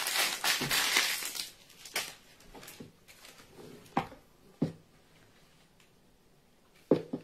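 Parchment paper rustling and crinkling for about the first second and a half as it is pulled off a cake layer, then a few sharp clicks and taps of a utensil against the icing tub and plate as cream cheese icing is scooped onto the cake.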